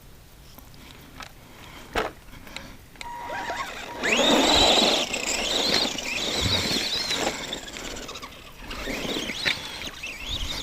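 Arrma Granite 2WD RC monster truck's electric motor whining as it accelerates about four seconds in, the pitch climbing quickly, then rising and falling with the throttle, over the noise of the tires on dirt. A single thump about two seconds in.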